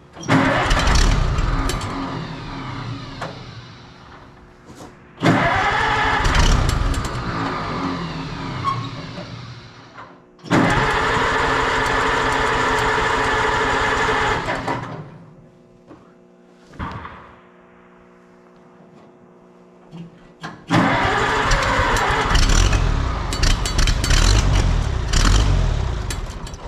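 Oliver 77 tractor's six-cylinder gasoline engine cranked on the starter in four separate attempts, each burst dying away again without the engine settling into a run. The hard starting is the sign of a fuel problem, which the owner suspects is not enough fuel reaching the engine.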